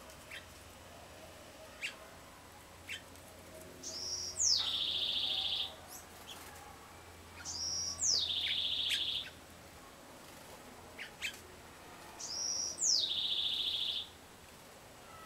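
A songbird singing the same phrase three times, about four seconds apart: a short high note, a quick downward-slurred whistle and a fast trill about a second long. Short chip notes come between the songs.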